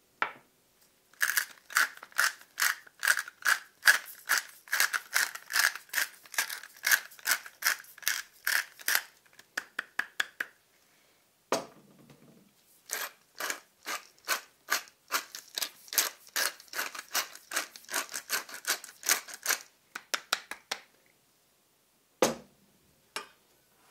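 Spice mill twisted by hand, grinding seasoning in two long bouts of rapid ratcheting clicks, about three to four a second. A knock falls between the bouts and another near the end.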